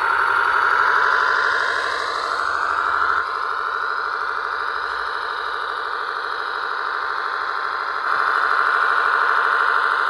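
Simulated diesel tractor engine sound from an RC model tractor's sound module, running at a steady rhythmic beat through a small speaker. Its level jumps abruptly about three seconds in and again near eight seconds.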